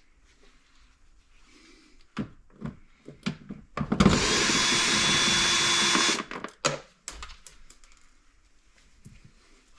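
Cordless drill-driver running for about two seconds, backing out a door-panel screw, with clicks and knocks of handling before and after.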